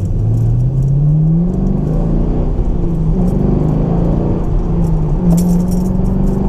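Chevrolet Camaro SS V8 with its dual-mode exhaust, heard from inside the cabin while driving. The engine note climbs under acceleration for about a second and a half, then settles into a steady cruise.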